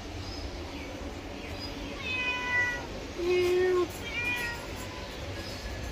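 Cats meowing: a few high, slightly falling meows about two seconds in, then a louder, lower, even-pitched meow a little after three seconds and a short high one just after it.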